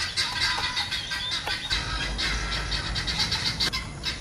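Small knife scoring and cutting fresh coconut flesh inside the half shell: a quick, continuous run of short scraping strokes.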